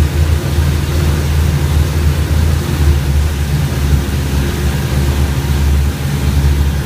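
Rotec R3600 nine-cylinder radial aircraft engine running steadily on a test dyno, a loud, even low drone.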